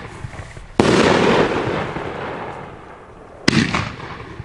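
500-gram Pyro Junkie 'Abominable' firework cake firing its shots: a loud bang about a second in that trails off over about two seconds, then another sharp shot about three and a half seconds in.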